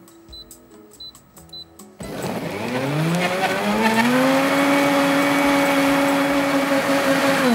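Countertop blender switched on about two seconds in, its motor whine rising to a steady pitch as it purées raw beetroot, banana and ginger into a smoothie. It runs steadily and starts to wind down at the very end.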